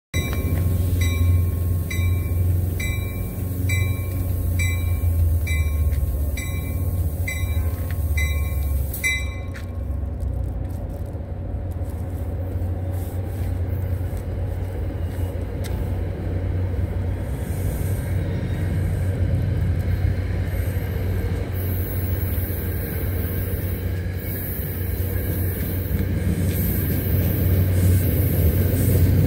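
A bell rings in an even rhythm, a little over once a second, for about the first nine seconds over a steady low rumble. Near the end an NJ Transit passenger train of multilevel coaches rolls into the station and the rumble grows louder.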